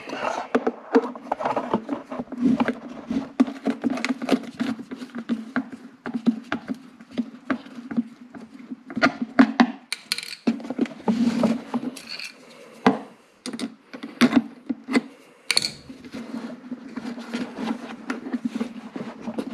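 Irregular clicks, knocks and scrapes of hands and a tool working a worm-drive hose clamp loose on the rubber intake boot of a plastic motorcycle airbox, over a steady low hum.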